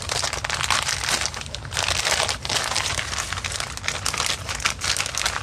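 Clear plastic bag crinkling and rustling with many small crackles as it is handled.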